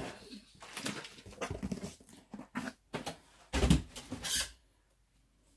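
Shrink-wrapped multipack of aluminium drink cans handled out of a cardboard box: scattered rustles and knocks, then a thump about three and a half seconds in as it is set down on a soft bed, and a crackle of plastic wrap just after.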